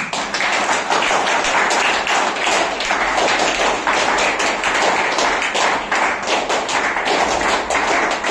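A crowd clapping together in a set rhythm: a continuous run of rhythmic handclaps.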